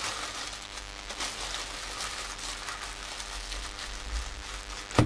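Clear polythene bag crinkling and rustling as it is handled and wrapped closed, ending in a single sharp knock.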